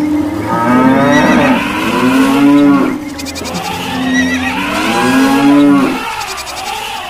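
Cattle mooing: several long, overlapping calls that rise and fall in pitch, in two rounds, fading near the end.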